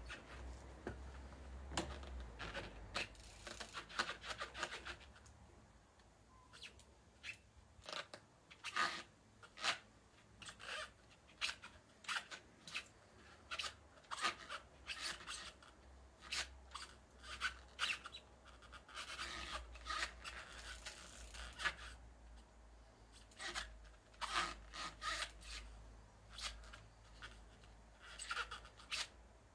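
BMX bike hopped and balanced in place on a wooden beam: irregular sharp knocks and clatters as the tyres and frame land on the wood and the chain and parts rattle, coming in spells with short scuffing stretches between.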